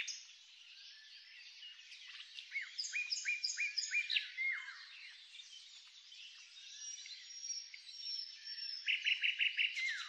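Several birds singing and chirping, with a series of short falling whistles about three to four seconds in and a quick run of about six notes near the end.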